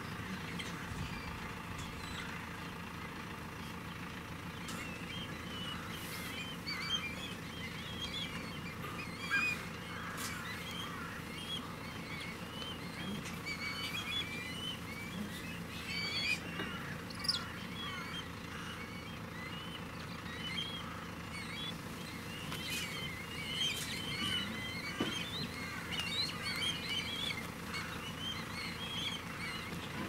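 Many birds calling over one another in short chirps and calls, busiest near the end, over a low steady engine hum.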